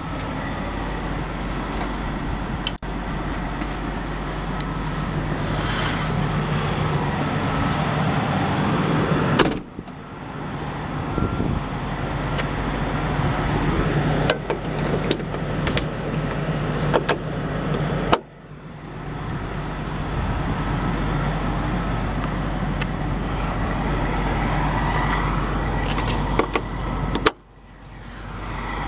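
Duramax diesel engine of a GMC C5500 shuttle bus idling steadily, with a few scattered clicks. The sound cuts out abruptly three times and comes back each time.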